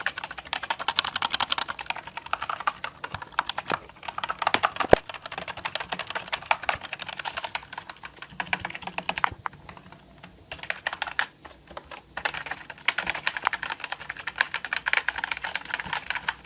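Fast typing on a Nubwo NK-55 semi-mechanical keyboard: a rapid, continuous run of clacking keystrokes, with brief pauses about ten and twelve seconds in.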